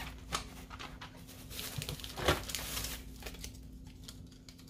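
Plastic toy packaging rustling and crinkling as it is handled, with a few light knocks; the loudest rustle comes a little past two seconds in.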